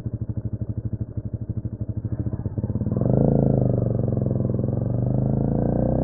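Honda CMX250 Rebel engine ticking over at low revs with evenly spaced exhaust pulses, about a dozen a second. About three seconds in it gets louder and the revs rise as the bike accelerates away.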